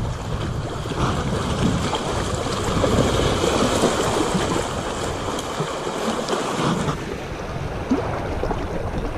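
Strong wind buffeting the microphone over choppy waves washing against shoreline rocks, a steady rushing noise.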